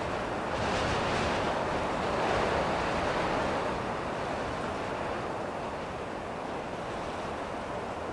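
Ocean surf: a steady rush of breaking waves that swells over the first few seconds and then eases off a little.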